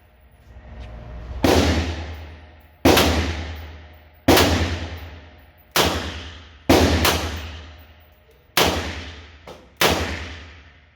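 Handgun shots fired one after another at a steady pace, about one every second and a half. Each is a sharp crack with a long echoing decay from the indoor range. There are about eight in all, two of them close together about seven seconds in.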